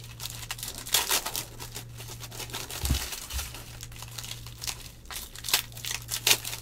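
Foil wrappers of NBA Hoops trading-card packs crinkling and crackling in the hands as the packs are torn open and the cards handled, in irregular rustles. A low thud about three seconds in, over a steady low hum.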